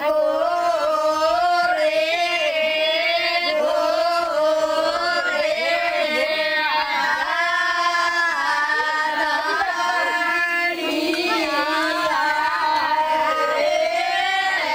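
A group of Rabari women singing together in unison: one continuous, wavering melody with no drum beat.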